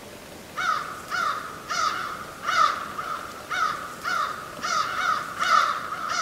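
Bird calls repeated over and over, about two calls a second.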